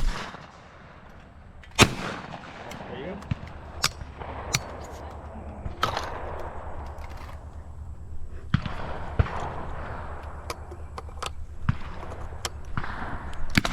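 Two shotgun shots, the second about two seconds after the first, fired at clay targets thrown on the call of "pull". Lighter clicks and knocks follow.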